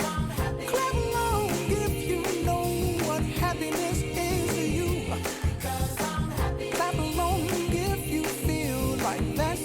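Background pop music with a female singing voice over a steady beat.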